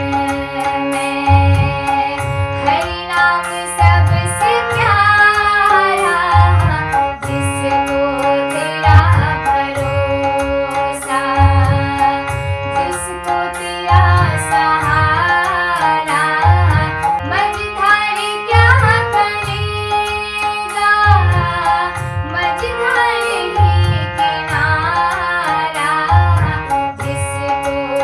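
Hindi devotional song (bhajan): a female voice sings an ornamented melody over tabla and a steady low drum beat.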